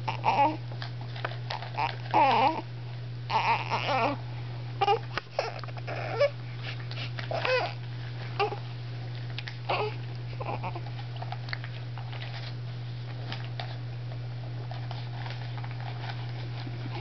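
Newborn baby fussing: a run of short whimpers, squeaks and babbling sounds, most of them in the first ten seconds, fewer after. A steady low hum runs underneath.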